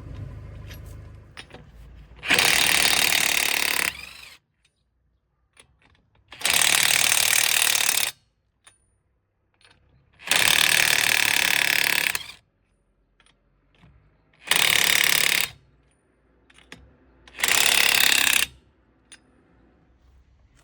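Parkside PASSK 20-Li C4 20 V cordless impact wrench hammering in five bursts of one to two seconds each, with small clicks in the pauses between them.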